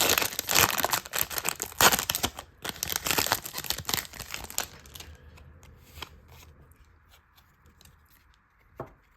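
Pokémon booster pack's foil wrapper being torn open and crinkled, loud for about four and a half seconds, then a few faint clicks of handling and one short knock near the end.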